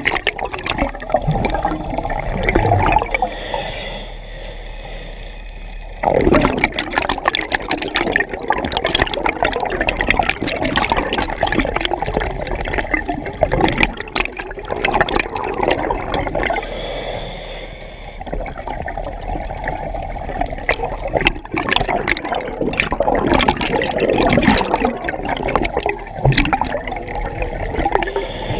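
Scuba regulator exhaust bubbles gurgling and rushing past the mask-mounted camera housing as the diver exhales, in long bursts separated by quieter pauses of a couple of seconds while the diver breathes in.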